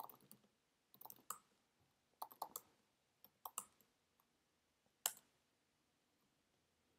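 Faint computer keyboard typing: short clusters of keystrokes, then one sharper, louder key press about five seconds in, the Enter key that runs the command.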